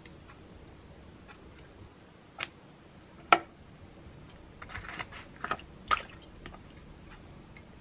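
Metal tongs clicking and tapping against a plastic tub and container while lifting wet slices of pickled yellow radish. A few separate sharp clicks come first, the loudest about a third of the way in, then a quick cluster of clatter in the second half.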